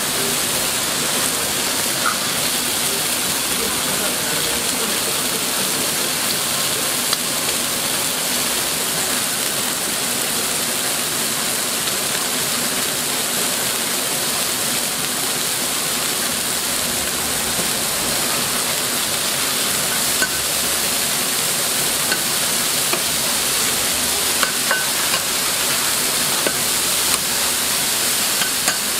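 Beef patties and an egg sizzling steadily on a hot flat-top griddle, a dense crackling hiss, with a few sharp ticks near the end.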